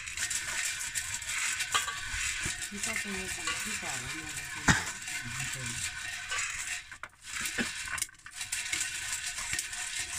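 Corn kernels rattling and crackling against a metal pot as they are stirred with a stick over the fire, with one sharp pop about halfway through.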